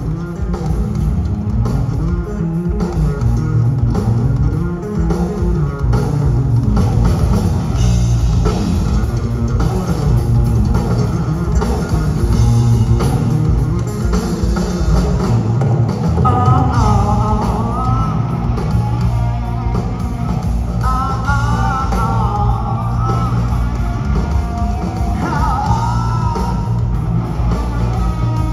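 Live hard rock band playing: distorted electric guitars, bass guitar and a drum kit through a PA. About halfway in, a high wavering lead line comes in over the band.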